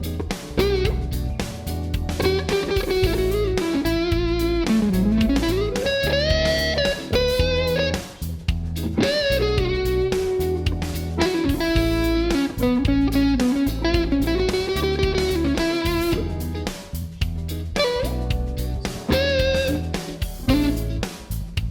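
PRS McCarty 594 electric guitar playing a blues-flavoured lead of single-note lines with string bends and slides, including a deep bend down and back up about five seconds in.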